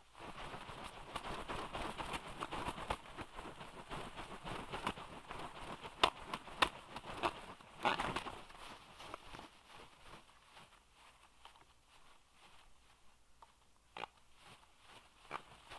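Juvenile black storks flapping and shuffling on their stick nest: dense crackling and rustling of twigs and wing feathers, with a few sharp snaps about six to eight seconds in, thinning to scattered clicks near the end.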